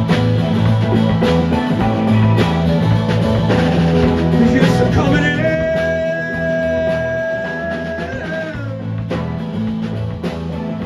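Rock band playing an instrumental break: drum kit, bass and electric guitar. About halfway through, a lead line holds one long high note for around three seconds, then bends down and drops away.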